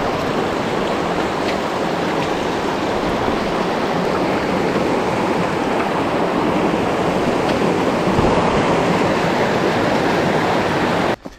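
Steady, loud rush of water that cuts off abruptly near the end.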